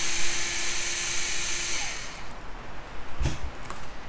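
Cordless electric screwdriver running steadily as it backs out a screw, then stopping about two seconds in. A few light clicks and knocks follow.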